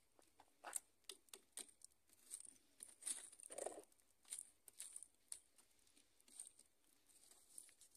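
Faint, irregular crackles and pops from a wood-ember fire burning under a grill, a few at a time with a busier patch about three seconds in.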